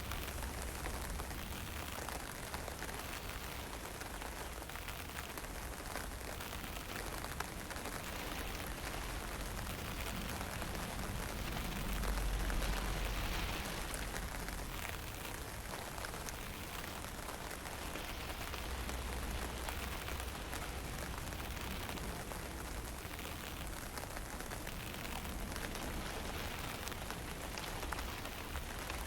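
Wind blowing in gusts over a fine drizzle, an even rushing hiss with low swells; a stronger gust builds about twelve seconds in.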